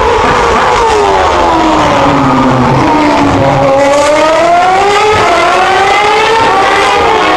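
Formula 1 cars' 2.4-litre V8 engines at very high revs, loud and close. The engine note falls over the first few seconds as the cars brake and downshift for the corner, then climbs as they accelerate away, and falls and rises again near the end.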